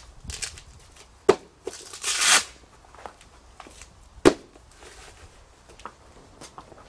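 Hook-and-loop (Velcro) waist straps of a bulletproof vest being adjusted: one rip of the straps tearing open about two seconds in, with two sharp knocks against the vest, about a second in and near four seconds in, and light handling rustle between.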